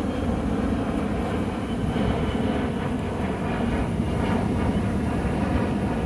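Jet airliner engines passing overhead, heard as a steady low rumble that grows slightly louder.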